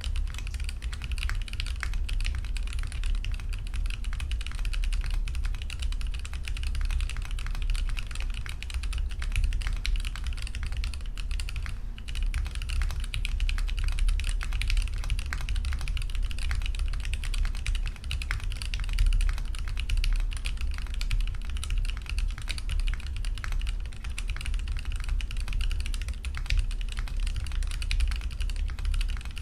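Continuous fast typing on a custom mechanical keyboard, a wilba.tech Thermal with JWK Marshmallow linear switches (progressive springs, nylon housing, POM stem) and ePBT keycaps: a dense stream of deep "thock" keystrokes.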